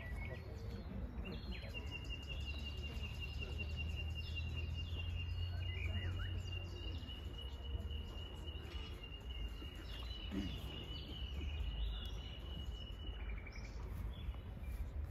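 Outdoor ambience: birds chirping here and there, and a steady high-pitched trill that starts about two seconds in and stops shortly before the end, over a low rumble.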